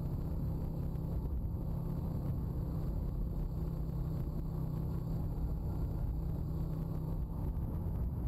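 Honda ATV's single-cylinder four-stroke engine running at a steady speed while riding over a rough dirt trail, a constant low rumble with no revving.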